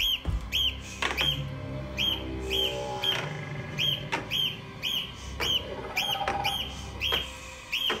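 Short bird-like chirps repeating about twice a second over a low, sustained horror film score, with occasional sharp hits.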